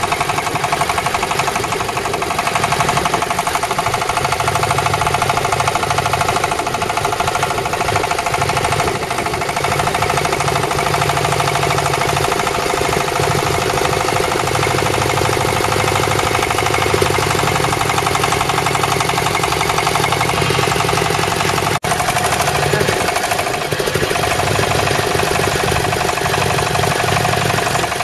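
Hydraulic guardrail-post drilling machine at work, its engine running under load as the drill rod bores into the ground: a steady, dense mechanical clatter, with a momentary break about three-quarters of the way through.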